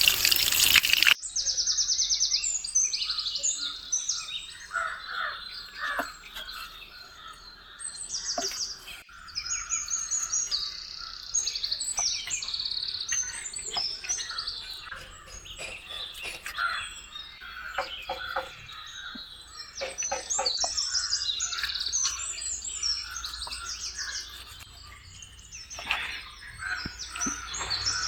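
Many small birds chirping and calling continuously, with a few light clicks among them. A rush of running water stops about a second in.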